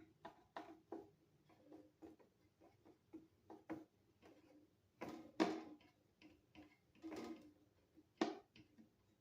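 Irregular light clicks and knocks of small parts being handled: servo cable plugs being pulled and small wooden mechanical units being lifted out of the feeder, with the loudest knocks about five and eight seconds in.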